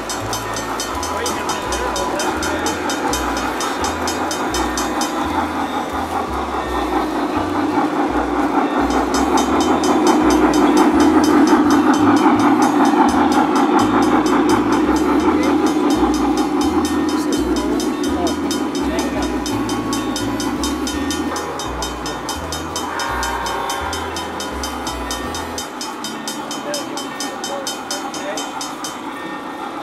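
Three-rail toy trains running on the layout: a continuous rolling rumble of wheels on track. It swells to its loudest about ten seconds in as a train runs close by, then eases off after about twenty seconds.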